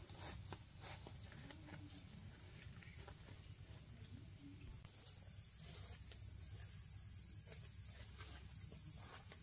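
Insects trilling steadily in high, thin tones, with a few faint taps.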